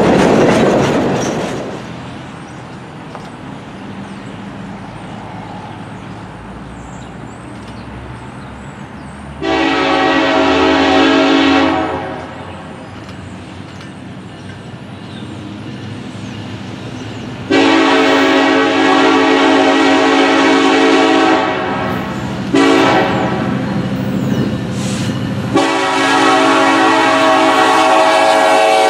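Air horn of an Arkansas & Missouri EMD SD70ACe diesel locomotive sounding several loud blasts for a grade crossing as it approaches: one about two seconds long, then a longer series of blasts, and a last long blast near the end. In the first two seconds, the wheels of passing covered hopper cars clatter on the rails and fade, leaving a low rumble.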